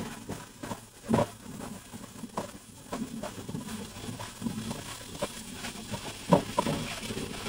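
Wooden spatula stirring and turning cubes of pork belly frying in a nonstick pan. Scattered knocks and scrapes of the spatula against the pan sound over a faint frying hiss, the loudest about a second in and again a little after six seconds.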